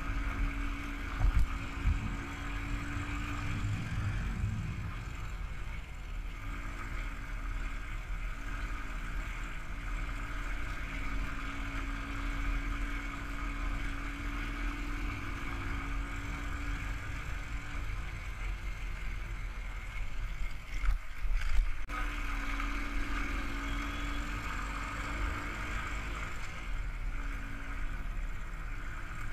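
Royal Enfield Thunderbird's single-cylinder engine running on the move, with steady wind rush on the microphone. The engine note comes and goes, and there are a few louder knocks about a second in and around twenty-one seconds.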